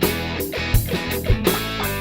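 Background rock music with guitars and a steady drum beat.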